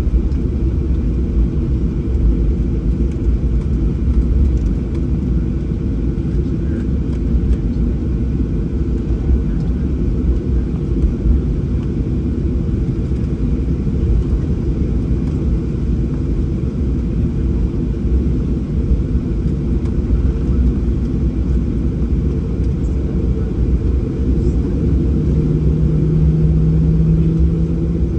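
Cabin noise inside a Boeing 737-800 taxiing after landing: a steady low rumble from the idling engines and the airflow. A steady low hum joins in near the end.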